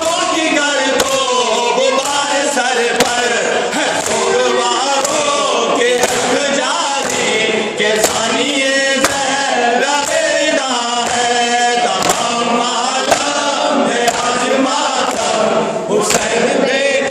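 A noha (Shia lament) sung by a male reciter into a microphone, with a group of men singing along. Under the singing runs a steady rhythm of hands striking chests in matam.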